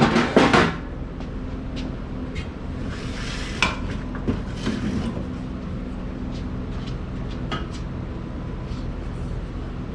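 A few scattered light metal clinks and knocks as sheet-metal pizza oven parts are handled and set in place, over a steady low hum.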